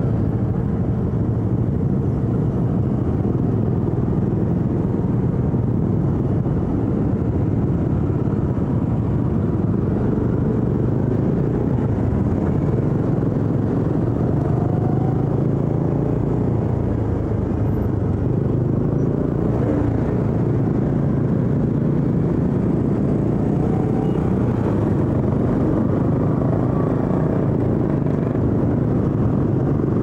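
Motorcycle engine running at road speed, heard from on board with steady wind and road rumble. The engine pitch dips a little around the middle and climbs again in the later part.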